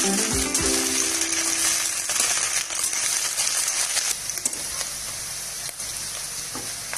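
Cut okra sizzling as it shallow-fries in hot oil in a pan, a steady hiss that drops a little in level about four seconds in.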